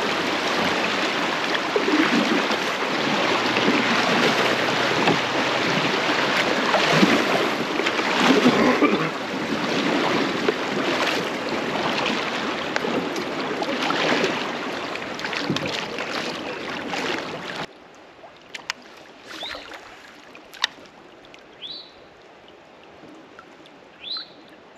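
Shallow creek riffle rushing around a paddled kayak's hull, with paddle strokes splashing in the water. About two-thirds of the way in the rush cuts off suddenly, leaving calm water with only a few faint clicks and short chirps.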